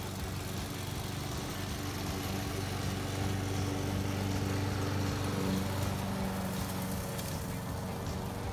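Craftsman walk-behind gas lawn mower engine running steadily under load while cutting grass, a little louder in the middle as it passes close.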